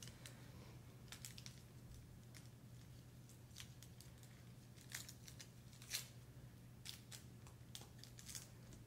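Faint crinkling and tearing of a silk suture packet being opened by gloved hands: scattered soft crackles and clicks, two of them a little louder about five and six seconds in.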